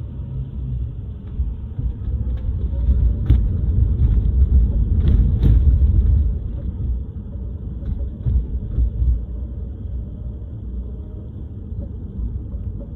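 Low road and tyre rumble inside a new Tesla Model 3's cabin, driving at about 20–25 mph. A few short knocks cut through it, the loudest about three seconds in and around five seconds in, with two more near eight seconds. These are the unexplained thump noise the new car makes.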